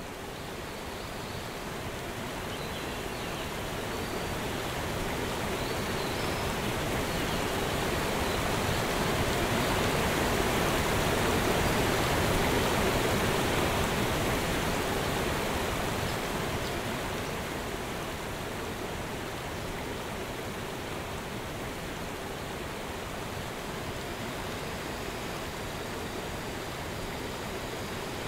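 Steady, even rushing noise with no tune or rhythm, swelling to its loudest about halfway through and then easing back.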